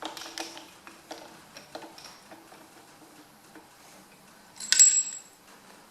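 Small metal parts clicking and clinking as engine internals are handled, with one louder ringing metal clink near the end.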